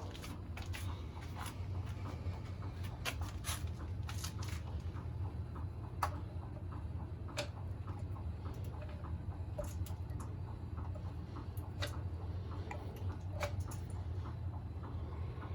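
Irregular metallic clicks and ticks from the parts of an antique outboard motor being worked by hand, a few every second with uneven gaps, some ringing briefly, over a steady low hum.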